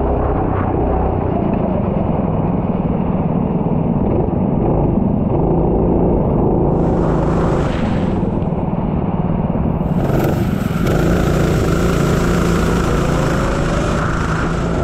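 Racing engine running hard and steady, its pitch rising and falling with the throttle. A rushing hiss joins it briefly about seven seconds in, then again from about ten seconds until near the end.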